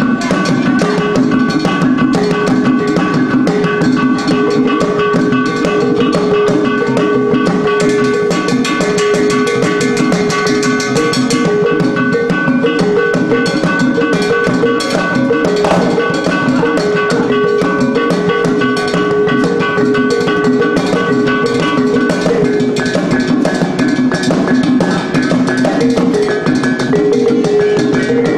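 Music with a fast, steady drum beat under held melodic notes.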